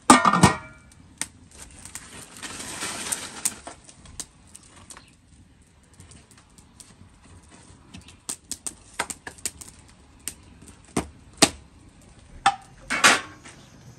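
Scattered sharp clicks and knocks, with a loud clatter right at the start and a quick run of clicks in the second half.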